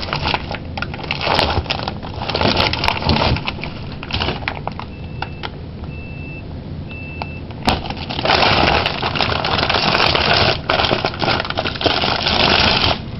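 Frozen food packages being rummaged through in a packed freezer: plastic bags crinkling and boxes knocking and scraping, loudest in the last five seconds. Three short electronic beeps sound in the quieter middle stretch.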